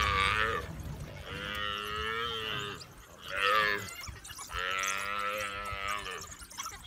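African buffalo bawling in distress, four drawn-out, wavering calls, the third one short.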